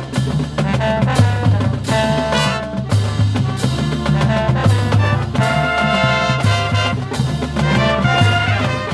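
High school marching band playing: brass melody with trumpets and trombones over a steady drum beat.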